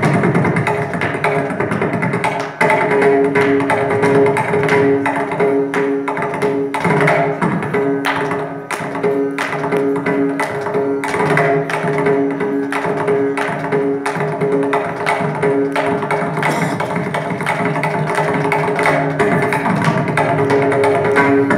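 Mridangam solo (layavinyasam) in misra chapu tala: fast strokes on the double-headed barrel drum, many of them ringing at a clear pitch from the tuned right head, in repeating rhythmic patterns.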